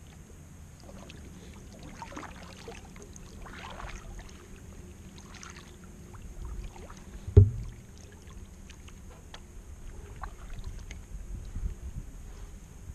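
Kayak paddle strokes in calm water: the blades dipping and splashing in a few soft bursts, with one loud thump about seven and a half seconds in.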